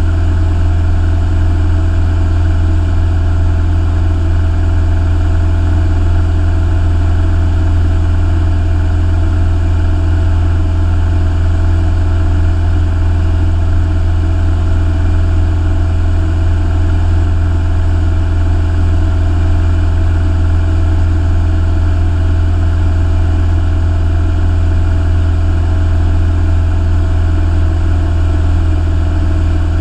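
Single-engine propeller aircraft's engine and propeller running steadily in flight, heard from inside the cabin: a loud, constant low hum with steady higher tones above it.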